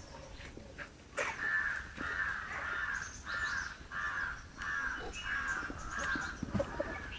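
A bird giving a steady series of about eight harsh, cawing calls, roughly one and a half a second, starting about a second in.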